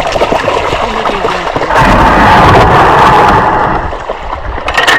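Water splashing and rushing around a paddled kayak, swelling into a louder rush in the middle, with a few sharp splashes near the end.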